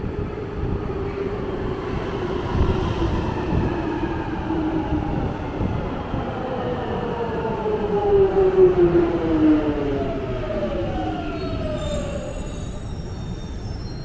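London Underground Jubilee line train pulling into the platform, its motor whine falling steadily in pitch as it slows, loudest just after the middle. Brief high squeals come near the end as it comes to a stop.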